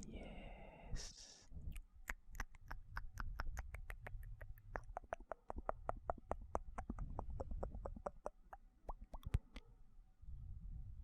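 Close-miked ASMR mouth sounds: a short breathy hiss, then a long run of wet tongue and lip clicks, about five a second, which stops near the end.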